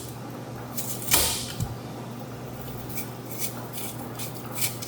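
Kitchen food-prep handling noises: a few scattered scrapes and clicks, the loudest about a second in, over a steady low hum.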